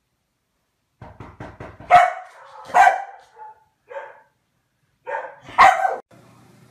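A dog barking about five times in short, loud barks, after a quick run of soft ticks.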